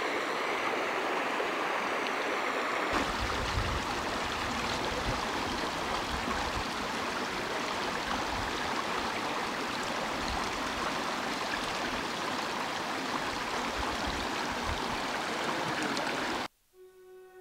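Shallow stream rushing steadily over rocks and fallen logs, with a fuller, lower rush from about three seconds in. It cuts off suddenly near the end, giving way to soft music.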